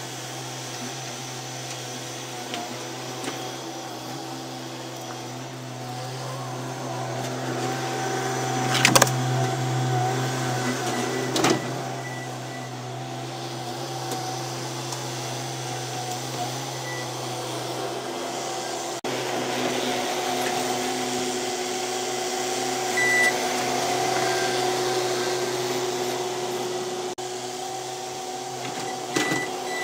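Skid-steer loader's diesel engine running steadily while it pushes snow, growing louder as it works close by. Two sharp bangs stand out, about nine and eleven and a half seconds in.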